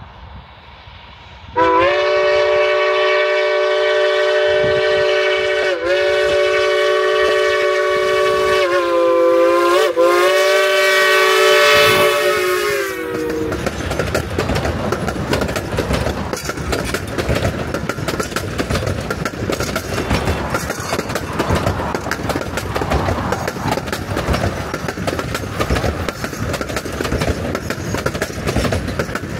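K-28 narrow-gauge steam locomotive whistle blowing one long chord of several notes, starting about a second and a half in and lasting about twelve seconds, dipping in pitch twice as it is played. It then stops, and the loud, clattering noise of the passing train takes over.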